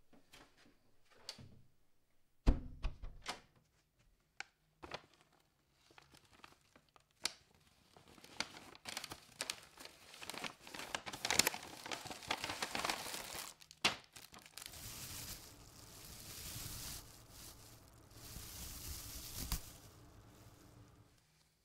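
A door shuts with a thump about two and a half seconds in, then packaging crinkles and tears as a parcel is unwrapped by hand, giving way to steady rustling.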